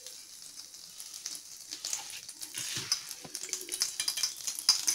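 Batter-coated cauliflower fritter frying in hot oil in a kadai, the oil sizzling and crackling, the crackle getting busier from about a second and a half in.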